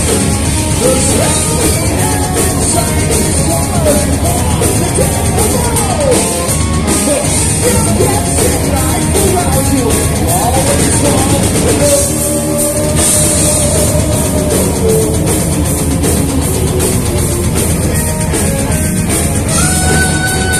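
Heavy metal band playing live: distorted electric guitars, bass and a drum kit, with a man singing over them. Near the end a high note is held with vibrato.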